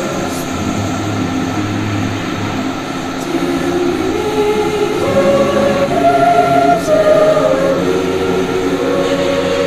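A group of voices singing a slow hymn, with long held notes that step from one pitch to the next.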